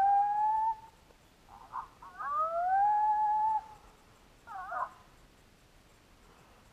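Coyote-style yips and howls: a long rising howl dying away about a second in, then a few short yips running into a second long howl that rises and holds, and a brief burst of yips near the five-second mark.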